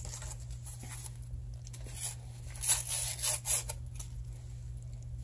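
A paper seasoning envelope being torn open and handled, with a few short rustling, tearing bursts between about two and three and a half seconds in, over a steady low hum.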